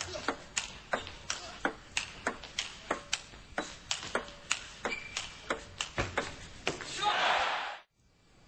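Table tennis rally: a celluloid ball clicking off bats and table about three times a second in a long exchange. Near the end, a brief burst of crowd applause that cuts off suddenly.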